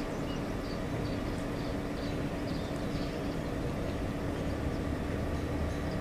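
Steady mechanical hum of industrial plant machinery, a constant low drone with a held tone that does not rise or fall. Faint short bird chirps sound above it.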